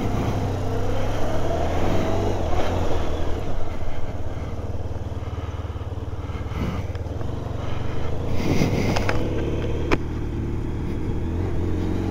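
Motorcycle engine running as the bike rides along, its note rising and falling with the throttle.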